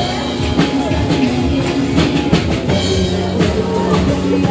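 Loud music with a drum-kit beat.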